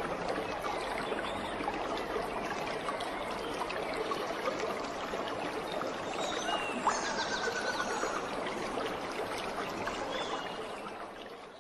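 Water running in a steady trickle and splashing, fading out near the end.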